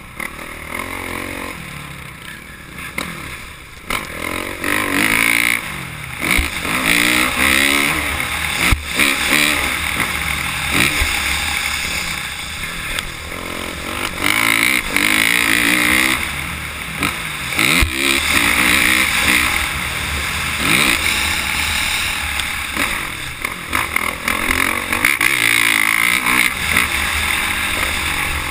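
Motocross bike engine revving up and dropping back again and again, heard from on the bike while riding a dirt track, over a steady rushing noise. A few sharp knocks cut through at points.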